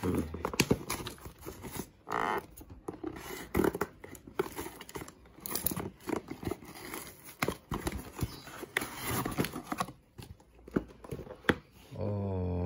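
Cardboard shipping box being torn open by hand: a run of uneven ripping and crinkling sounds with scattered sharp knocks and scrapes. Near the end a man's voice begins.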